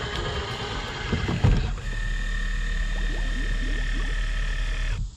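Self-deploying bow-mount electric trolling motor lowering itself into the water: its deploy motor whines steadily and stops abruptly about five seconds in. A loud clunk comes about a second and a half in.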